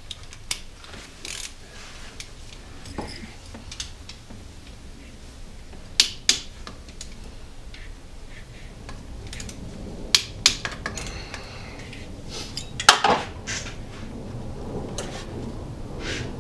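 Scattered metallic clinks and knocks of hand tools, a socket and ratchet, against engine parts while a timing chain tensioner is unbolted from a Ford 4.6 V8. The loudest cluster of knocks comes about 13 seconds in.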